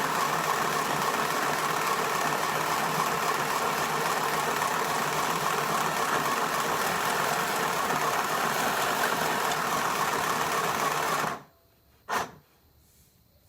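Portable mini sewing machine running steadily as it stitches, then stopping abruptly near the end, followed by one sharp click.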